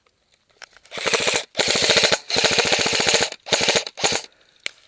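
Airsoft gun firing on full auto in four loud bursts of rapid shots, each about half a second to a second long, followed by a single sharp click near the end.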